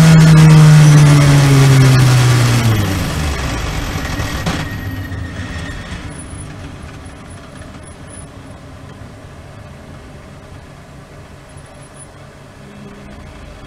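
In-car sound of a Porsche race car slowing down from about 90 mph. The engine note falls in pitch as the revs drop, then dies away within about four seconds, leaving a low rumble as the car rolls on at walking pace.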